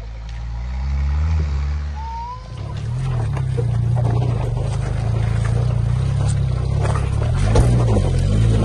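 Off-road 4x4 engine pulling under load, its revs rising and falling as it climbs. About two and a half seconds in it gives way to another 4x4 engine running steadily at low revs while crawling over rocks, with scattered knocks and crunches of tyres on stones.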